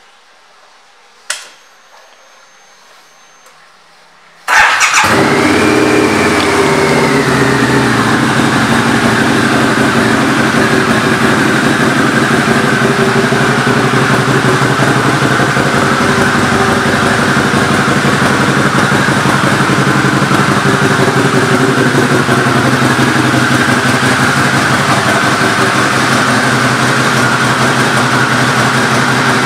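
Harley-Davidson V-Rod's Revolution V-twin, through Vance & Hines pipes: a single click about a second in, then, after a few quiet seconds, the engine starts suddenly and loudly and settles into a steady idle.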